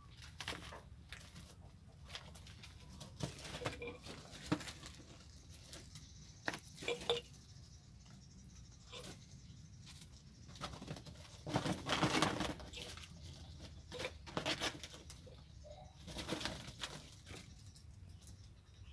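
Five-week-old kittens scuffling and playing on a plastic tarpaulin, cardboard and a rubble floor: irregular rustles, scrapes and paw patter, loudest about two-thirds of the way through.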